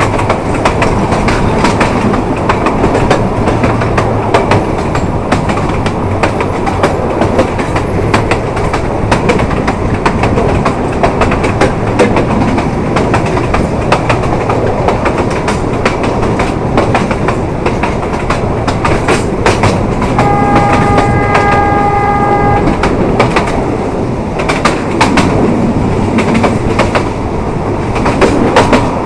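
Narrow-gauge passenger train running, heard from a coach window: a steady rumble with rapid clickety-clack of wheels over the rail joints. About two-thirds of the way through, the locomotive's horn sounds one steady blast lasting about two seconds.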